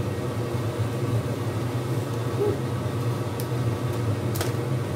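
Steady low hum with an even hiss from a running kitchen appliance, with two light clicks a second apart near the end.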